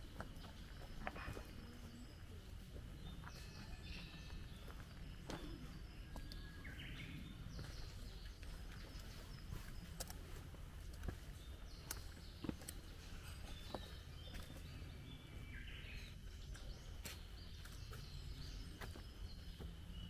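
Footsteps on a stone garden path, with birds calling now and then over a steady low rumble of outdoor background noise.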